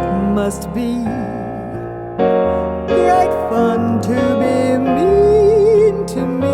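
Piano accompanying a woman singing a slow jazz standard, with her voice holding long notes with vibrato over the piano chords.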